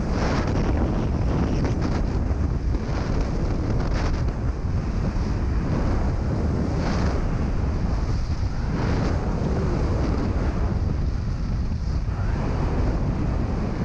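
Strong wind buffeting the microphone: a loud, steady low rumble with rushing noise over it and no break.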